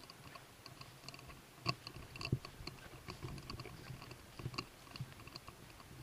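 Footsteps crunching and brushing through dry fallen leaves and undergrowth, with irregular small clicks and twig cracks, a few sharper ones about two seconds in and again near the end.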